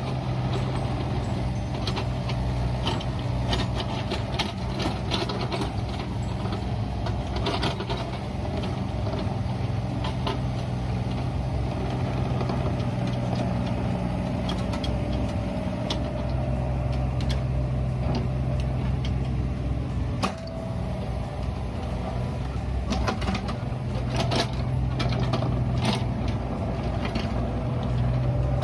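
Mini excavator's diesel engine running steadily, with scattered clanks and scrapes of the bucket working soil.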